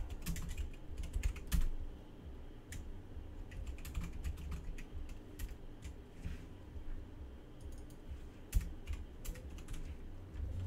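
Typing on a computer keyboard: irregular runs of key clicks, busiest at the start and again near the end, over a low steady hum.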